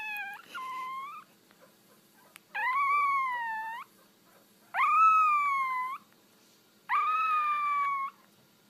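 Puppy howling: a short high call near the start, then three drawn-out howls of about a second each, roughly two seconds apart, each swooping up in pitch and then sagging.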